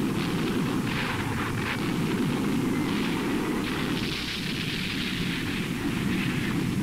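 Artillery fire and shell explosions as a continuous heavy rumble, with bursts of higher noise about a second in and again from about four seconds in, on an old film soundtrack.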